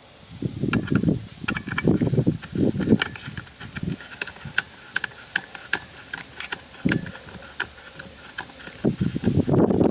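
Ratcheting screwdriver driving a Phillips screw back into a center console latch, its ratchet clicking about twice a second, with knocks and rubbing of handled plastic in the first few seconds. A louder scraping rustle starts near the end.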